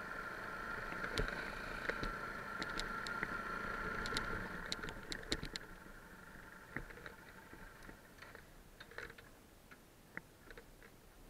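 Muffled motorcycle riding over loose gravel, with a steady running noise and many sharp ticks of stones. About halfway the steady noise drops away, leaving scattered ticks of gravel.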